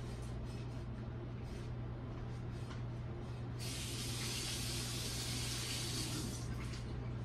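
A spraying hiss, starting sharply about halfway through and lasting about three seconds, over a constant low hum.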